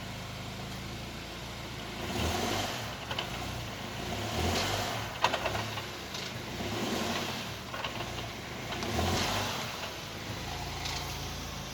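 Skoda Kodiaq running with a crackling and knocking that the owner puts down to its seven-speed DQ500 wet dual-clutch DSG gearbox. Over a steady engine hum, the noise swells four or five times, with sharp knocks and clicks, the loudest about five seconds in.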